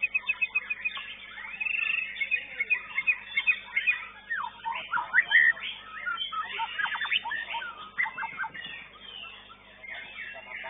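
White-rumped shama (murai batu) singing in full song: a fast, unbroken run of varied whistles, trills and chattering phrases, opening with a quick string of repeated notes.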